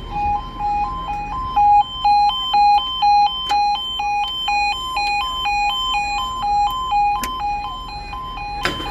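Level crossing's electronic two-tone alarm sounding, two pitches alternating about twice a second. A sharp click comes near the end.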